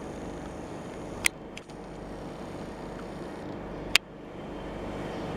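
Steady low mechanical hum, broken by two sharp clicks, one about a second in and one about four seconds in.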